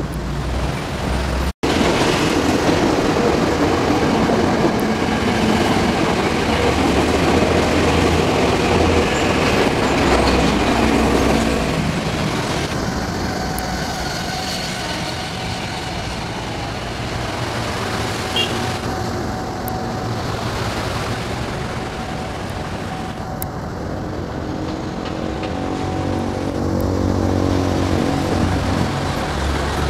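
KRL electric commuter train running past along the track, its wheels rumbling over the rails, loudest in the first twelve seconds and then fading to a quieter rumble. Near the end a low engine hum builds up.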